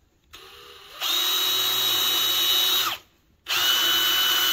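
Cordless drill with a small bit boring into a metal mounting tube: a faint start, then a steady high whine at full speed from about a second in. It stops just before three seconds and starts up again about half a second later.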